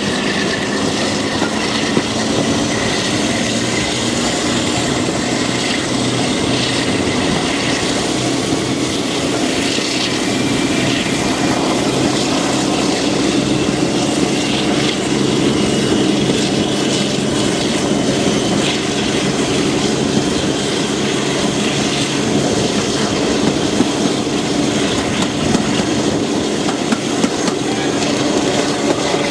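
Diesel-hauled heritage passenger train running along the line, heard from an open coach window: the coach wheels clattering over the rails, with a steady diesel engine drone from the locomotive ahead.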